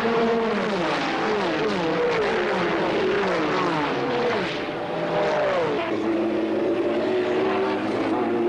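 A pack of Group C prototype race cars accelerating hard at full throttle, their engines making a dense, loud roar. Several engine notes drop in pitch one after another as cars sweep past.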